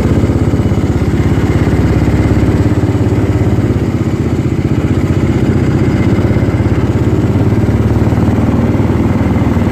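Small Tecumseh go-kart engine of a 1932 Ford Roadster-style Shriners car, running steadily with an even, rapid putter while the car is driven along at low speed.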